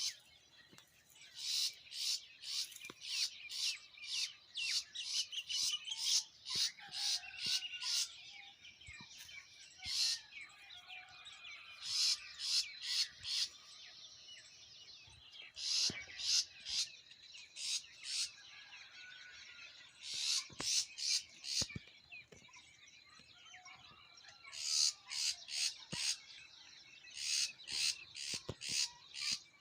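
Forest birds chirping: quick runs of sharp, high chirps repeated several times a second, coming in bursts of a few seconds, with softer warbling calls in between.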